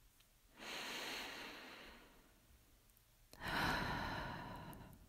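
A woman breathing heavily: two long breaths of about a second and a half each, the second louder.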